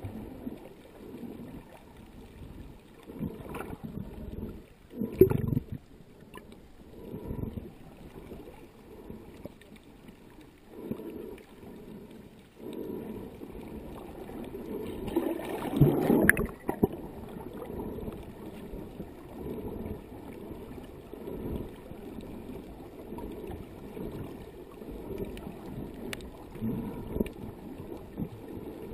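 Muffled underwater water noise: sloshing and bubbling in uneven surges, loudest about five seconds in and again around fifteen to sixteen seconds in.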